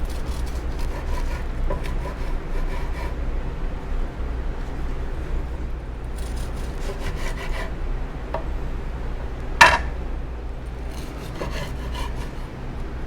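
Knife sawing through a fried salmon kikiam roll, in three spells of quick back-and-forth strokes, with one sharp knock a little under ten seconds in.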